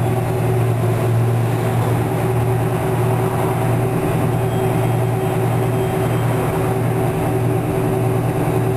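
Detroit Diesel 6V92TA two-stroke V6 diesel of a 1990 Orion I transit bus running with a steady, even hum, heard from inside the passenger cabin.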